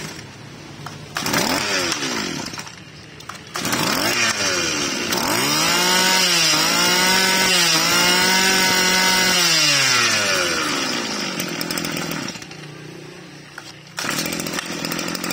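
Tanaka 20cc two-stroke brush-cutter engine pull-started. It catches a few seconds in, revs up to a steady high speed for about four seconds, then falls back to a low idle.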